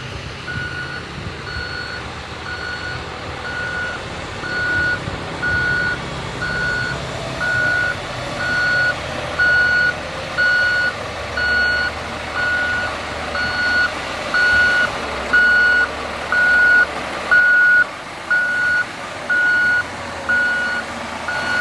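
Heavy vehicle's reversing alarm beeping steadily, about once a second, over the low rumble of its running engine.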